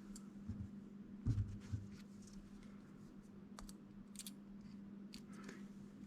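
Faint scattered clicks and a few soft knocks from small 3D-printed plastic parts and a switch cable being handled, over a steady low hum.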